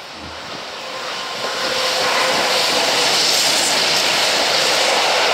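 Freight train of tank wagons rolling past close by: rail and wheel noise builds up over the first two seconds, then holds as a loud steady rush.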